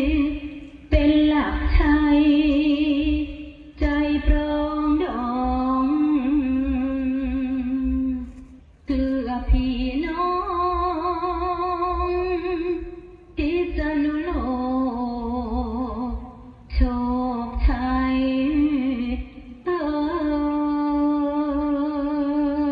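Thai traditional music with a woman singing long, wavering held notes in phrases of a few seconds, each ending in a short pause.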